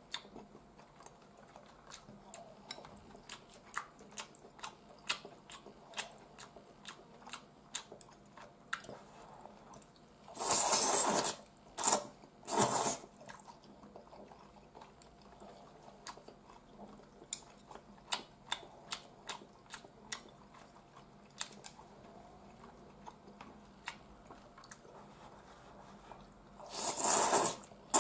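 A person eating udon noodles: small wet chewing clicks throughout, broken about ten seconds in by a loud noodle slurp and two shorter ones, and by another loud slurp near the end.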